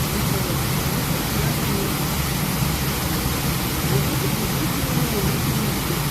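Waterfall close by, a steady rush of falling water.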